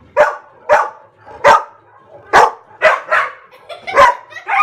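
A dog barking: a run of short, sharp barks, about eight of them at uneven spacing.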